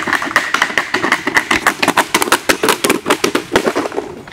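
Riderless two-wheel self-balancing scooter rolling down an asphalt slope, its wheels and plastic shell rattling in a rapid, irregular clatter of clicks and knocks that dies down near the end.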